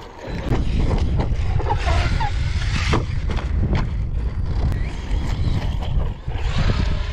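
Electric RC trucks running over rough ground, with scattered knocks and wind rumbling on the microphone.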